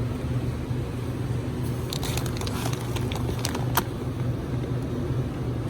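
A steady low hum with scattered light clicks and clatter, most of them about two to four seconds in.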